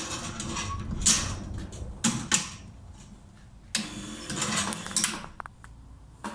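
A steel bandsaw blade being handled and slid into the clamp of a bandsaw-blade sharpener: irregular metallic scraping and rattling, with a few short clicks near the end.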